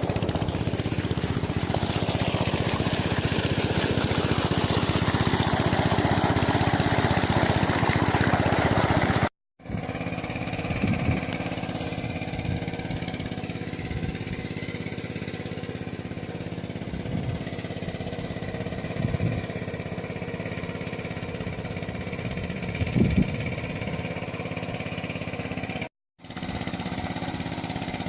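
A small engine running steadily. It cuts out abruptly twice, and after the first break it is quieter, with a few short knocks over it.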